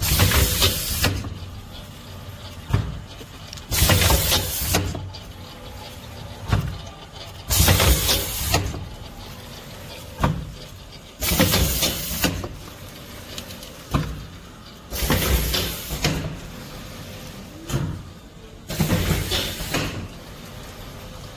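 Five-lane powder stick-pack fill-and-seal machine running through its cycle: about every four seconds a loud hiss lasting about a second, six times, with a short sharp click between each pair, over a steady machine hum.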